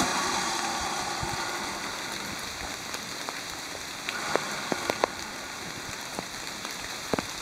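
A steady hiss of outdoor noise, with a few sharp clicks about four to five seconds in and again near the end.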